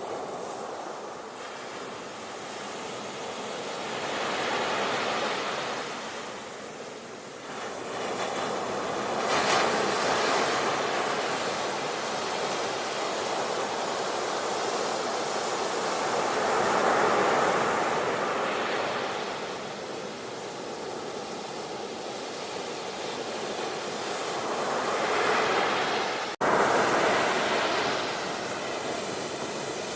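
Sea waves surging and washing on a shore, the rush of water swelling and ebbing every several seconds. The sound breaks off for a split second near the end.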